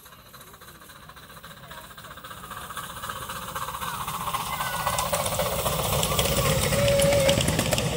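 Miniature steam locomotive hauling a passenger train, approaching and passing close by, growing steadily louder, with a fast clatter of wheels over the track building from about halfway.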